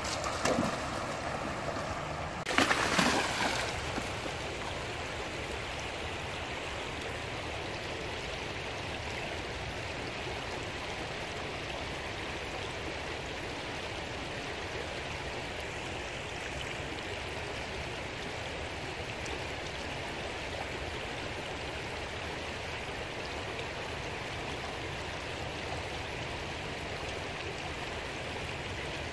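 Rain-swollen river rushing over rocks: a steady flowing-water noise, with a brief louder burst of noise about three seconds in.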